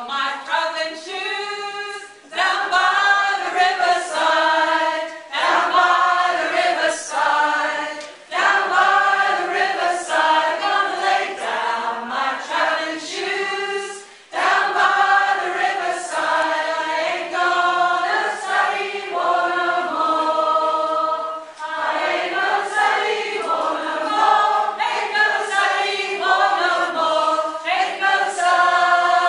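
A community choir of mostly women's voices singing a song together, in sung phrases with short breath breaks between them.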